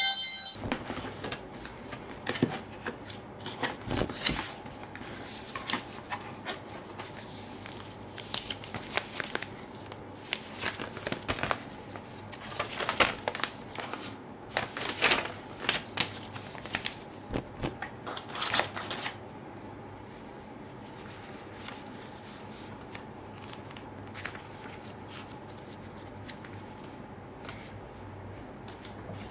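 Paper and cardboard being handled: a folded paper leaflet and the box's card flaps and insert rustling and crinkling in irregular bursts. The handling grows fainter and sparser about two-thirds of the way through.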